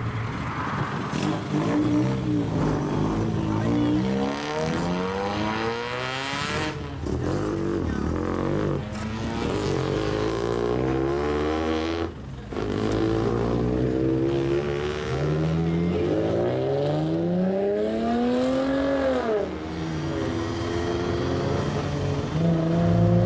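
Lowered cars driving off one after another, their engines revving up and down as they pull away. About three-quarters of the way through, one engine revs in a long rising pitch that peaks and drops away.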